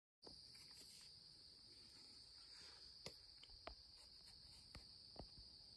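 Faint insect chorus, a steady high-pitched trill, with a few soft ticks scattered through it.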